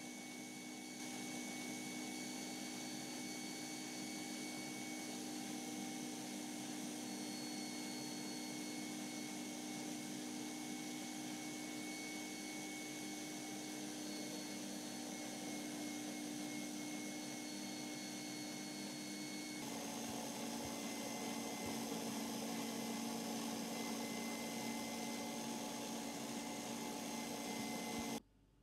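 Electric stand mixer running steadily, its whisk beating chilled whipping cream in a stainless steel bowl: an even motor whine. The tone shifts about 20 s in, and the sound cuts off abruptly near the end.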